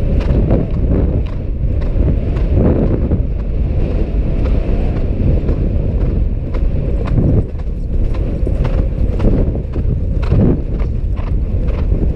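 Horse cantering on grass, its hoofbeats and tack making a steady, regular rhythm, under a loud rumble of wind buffeting the rider's helmet camera.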